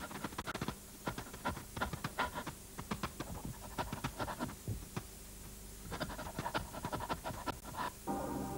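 Grey wolves running through snow: quick, irregular panting and scuffling in bursts, with a short lull about five seconds in. Music comes in near the end.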